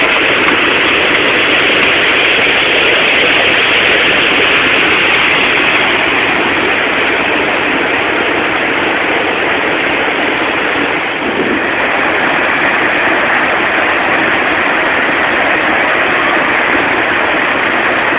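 Water rushing steadily over a river weir, a loud, even rush of noise with no breaks.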